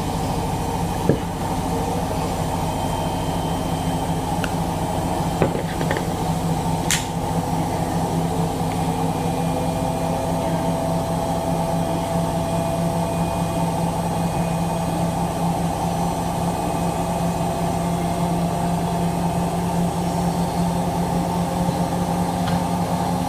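A steady machine hum, with a few light clicks in the first seven seconds.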